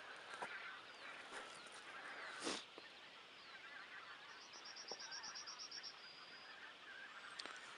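A large flock of geese calling in the distance, many honks overlapping into a faint, continuous chatter. A small bird sings a rapid high trill about halfway through, and there is a brief louder noise about two and a half seconds in.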